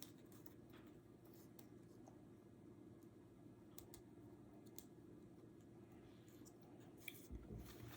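Near silence: a low steady room hum with scattered faint clicks of small plastic toy pieces being handled and pushed together, a few slightly louder near the end.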